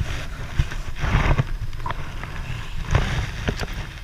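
A few sharp knocks and clicks over gusty noise and a low rumble, loudest about a second in and again near three seconds.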